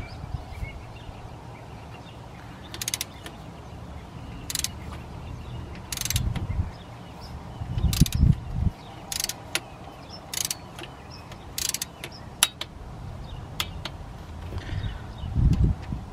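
Socket ratchet clicking in short, irregular strokes as it turns bolts in on the water pump of a Chrysler 3.5L V6, with a few dull thumps of the tool and hand against the engine.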